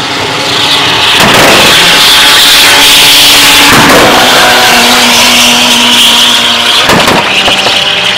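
A car launching off the line and accelerating hard down a drag strip, its engine revving loudly as it pulls away.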